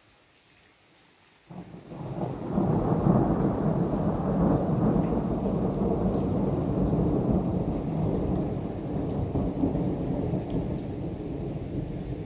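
Thunder: a sudden crack about a second and a half in, breaking into a long, loud, low rolling rumble that carries on and slowly eases.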